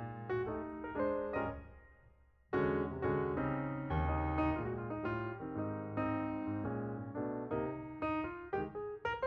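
Background piano music, notes played in a flowing line, fading out about two seconds in and starting again about half a second later.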